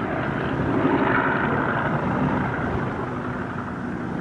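Piston-engined warbird's propeller engines droning in the distance, steady, swelling slightly about a second in.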